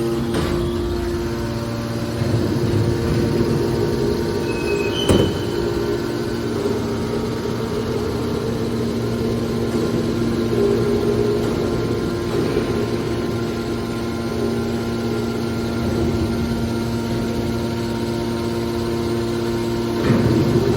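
Hydraulic metal baler running: a steady, even machine hum with a sharp metallic knock about five seconds in.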